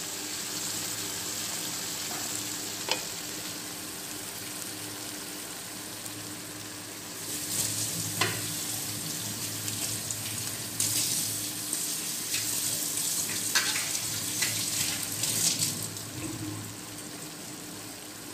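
Hilsa steaks sizzling in a thick mustard-and-poppy-seed paste in a nonstick wok, a steady frying hiss that grows louder and busier from about seven seconds in to near the end. A few light knocks against the pan are heard along the way.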